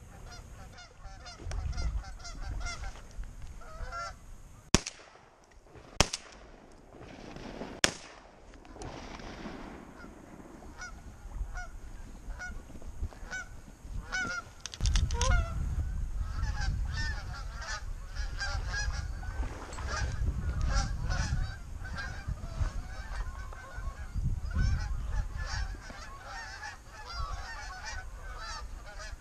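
Three shots from a Remington SP10 semi-automatic 10-gauge shotgun, about five, six and eight seconds in, amid a flock of Canada geese honking. The honking carries on, thicker, after the shots.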